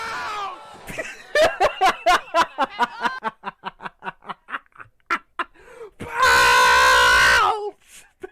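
A man laughing hard: a rapid string of laughs, about four a second, trailing off, then one long, loud high-pitched laughing cry about six seconds in.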